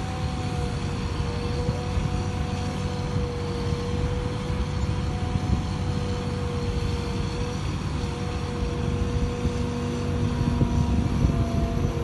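Liebherr 944 crawler excavator working as it digs: a steady diesel engine rumble with a steady whine over it. It grows louder and more uneven near the end as the full bucket is lifted.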